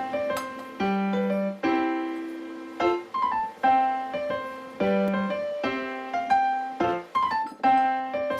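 Background music: a piano playing a short melody of struck notes that ring and fade, the phrase repeating about every two seconds.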